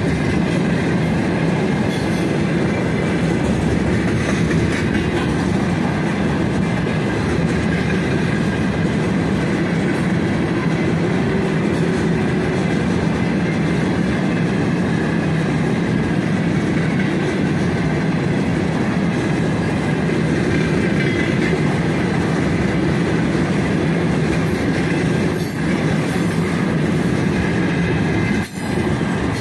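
A long freight train of tank cars rolling past close by, its wheels running on the rails in a loud, steady wash of noise.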